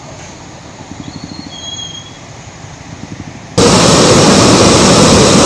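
Flooded river rushing, fairly quiet, with a few short high whistles over it. About three and a half seconds in it cuts abruptly to a much louder, steady rush of torrential floodwater.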